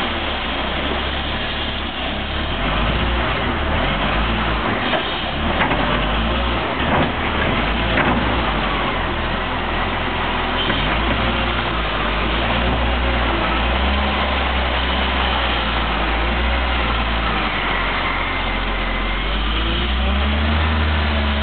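Volvo L70F wheel loader's diesel engine working as it empties a bucket of snow into a truck's hooklift container and drives off, with a diesel truck engine running alongside. A few sharp knocks come around the middle.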